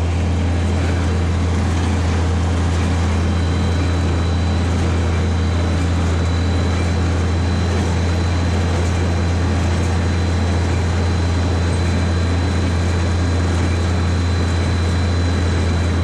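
Tractor engine running steadily at constant speed while pulling an International small square baler through a hay field, with a faint high whine through the middle.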